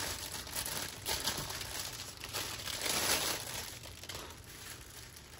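Small plastic bags of diamond painting drills crinkling as they are handled and sorted by hand, in a few louder rustles that die down near the end.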